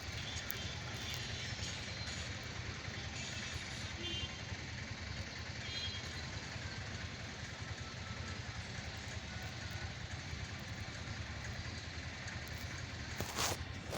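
Steady outdoor background noise, a low rumble with a hiss over it, with a couple of short sharp clicks near the end.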